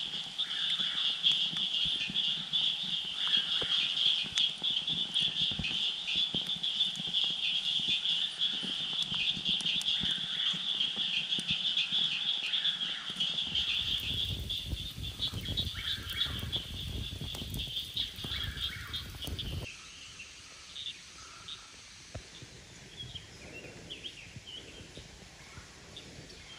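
Night chorus of frogs calling, a dense, fast high trill held without a break, with a low rumble beneath it in its later part. About twenty seconds in it drops away suddenly to quieter, scattered calls.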